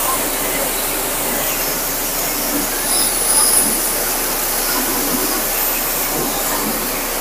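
Hotstarr commercial high-pressure washer's water jet spraying against a tractor's rear tyre and wheel rim: a steady hiss of spray.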